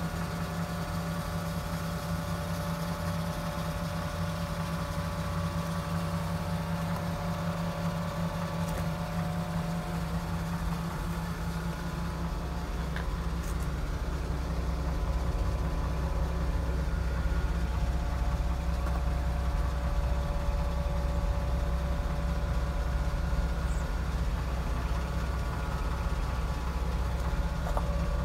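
1953 Dodge B4 pickup's flathead six-cylinder engine idling steadily, its low rumble growing a little louder about halfway through.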